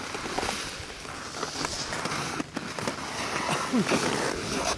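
Crackling rustle of an Aeros BerCut 15 speedflying wing's nylon fabric being shaken out and spread on snow by hand, with many small sharp crinkles.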